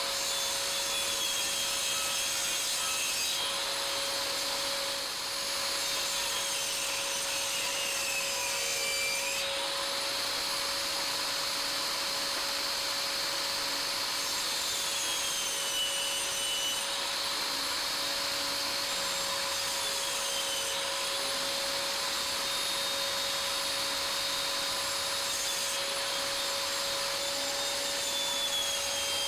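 A power tool running continuously on wood, its high whine dipping in pitch and recovering every few seconds as it comes under load.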